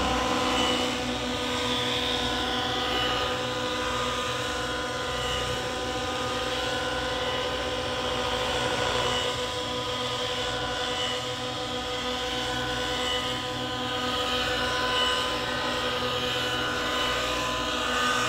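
Nitro-powered radio-controlled helicopter in flight: a steady, high engine whine with rotor noise that holds nearly the same pitch throughout.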